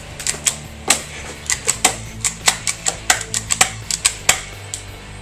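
Airsoft guns firing a rapid, irregular string of single shots, each a sharp click, about four a second, over a steady low hum.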